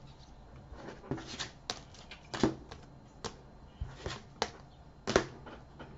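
Foil trading-card pack being handled and opened: a string of separate crinkles and clicks, the loudest about two and a half seconds in.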